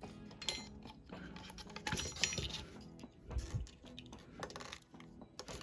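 Scattered light clicks and clinks of small screws and metal parts being handled while the JBL Xtreme 4's tweeters are unscrewed and lifted out, over soft background music.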